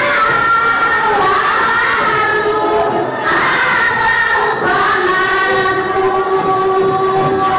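Women's choir singing a deba, the Comorian Sufi devotional chant, in unison with long held notes that slide between pitches and a brief breath break about three seconds in.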